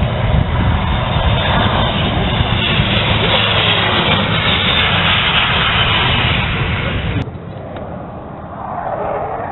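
Airbus A400M's four turboprop engines running loud and steady in a low pass, a deep rumble under a broad rush. About seven seconds in the sound cuts abruptly to a quieter rush.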